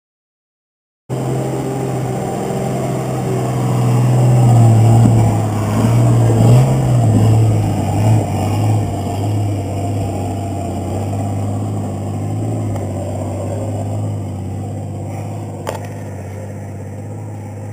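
Four-wheel-drive wagon's engine pulling it up a steep rocky track. The sound starts about a second in, and the revs rise and fall as it climbs. It is loudest for a few seconds early in the climb, then settles steadier and a little quieter as the vehicle moves away uphill. A single sharp click comes near the end.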